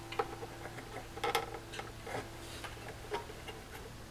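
Small, scattered clicks and taps of fingers handling a plastic wiring connector as it is pushed home onto an amplifier circuit board, over a faint steady hum.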